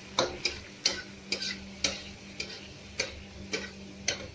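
Metal spatula clicking against a steel frying pan about twice a second while stirring onion and garlic sautéing in oil, over a steady low hum.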